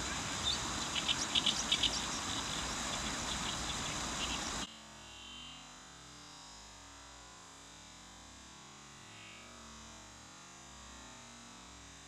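Oriental reed warbler singing a run of short, harsh repeated notes over the steady rush of a river. About five seconds in, the river noise cuts off suddenly, leaving only a faint hush.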